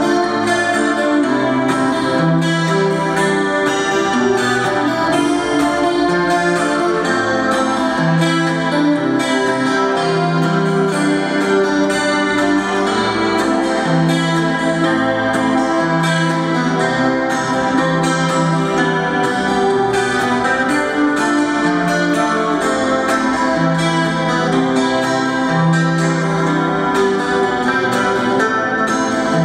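Acoustic-electric guitar played through a small amplifier: an instrumental melody over held low bass notes.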